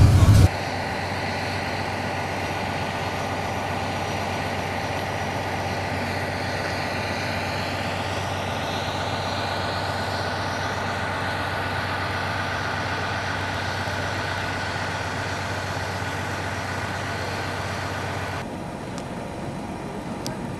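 Steady engine and road drone heard from inside a moving tour bus, with a faint whine that slowly rises in pitch between about six and ten seconds in. The drone drops away about eighteen seconds in, leaving a quieter background with a few faint clicks.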